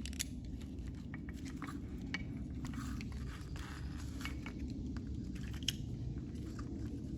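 Light, scattered clicks and taps of the split plastic switch housing and throttle parts being handled on the handlebar, over a steady low hum.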